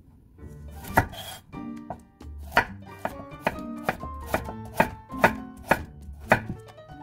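Chef's knife slicing a raw carrot on a wooden cutting board: about nine sharp knocks of the blade hitting the board, the first about a second in, then roughly two a second. Soft background music runs underneath.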